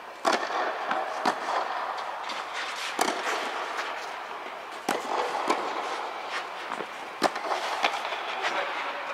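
Tennis balls struck by racquets in a doubles rally: sharp, echoing pops at uneven intervals of about one to two seconds, ringing on under an inflatable tennis dome.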